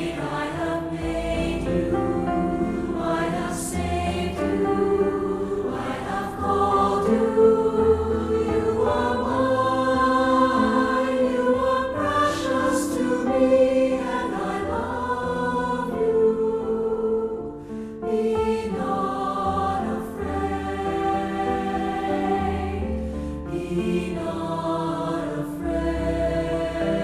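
A slow Christian devotional song: a choir singing over instrumental accompaniment with a steady bass.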